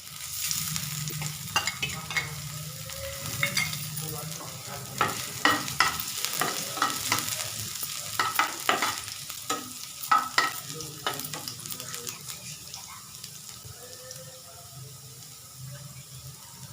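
Chopped ginger and garlic sizzling in hot oil in a pan, with a spatula scraping and knocking against the pan as they are stirred. The stirring strokes come thick through the middle and thin out near the end, leaving mostly the sizzle.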